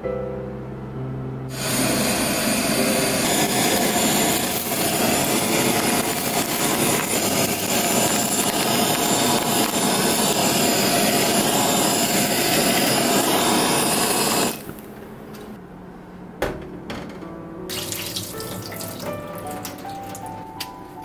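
Iwatani handheld cooking torch on a butane cassette canister burning with a loud, steady hiss as it sears a bonito fillet. The hiss starts about a second and a half in and cuts off suddenly a little past the middle, leaving background music.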